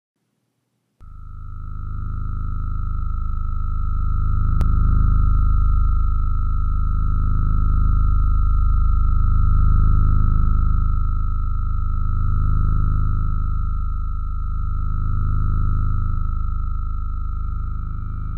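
Film-score drone: a steady, high electronic tone held over a deep low rumble that slowly swells and ebbs, starting about a second in.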